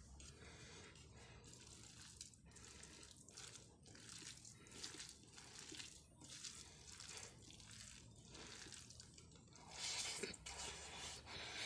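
Faint wet squishing of fingers mixing rice and fish curry on a plate, in repeated strokes about twice a second, then louder eating and mouth sounds from about ten seconds in as a handful goes to the mouth.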